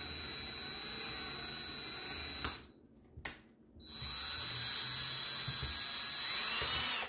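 Power drill motor running steadily, driving a Helicoil thread-repair insert into an engine bolt hole. It stops with a click a little over two seconds in, then runs again for the last three seconds, reversing the tool back out.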